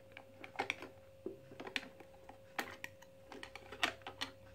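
Plastic battery-compartment cover of a toy ATM coin bank being fitted and pressed shut: a series of light, irregular clicks and taps of plastic on plastic.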